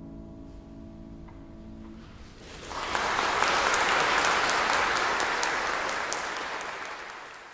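The last piano chord rings and fades, then audience applause breaks out about two and a half seconds in, peaks and gradually dies down near the end.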